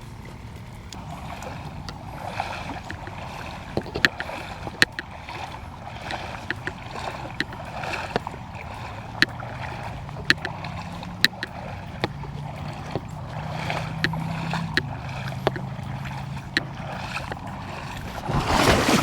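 Someone wading through a shallow creek: water sloshing in an even rhythm of about one stroke a second, with sharp clicks scattered through. A louder splash comes in near the end.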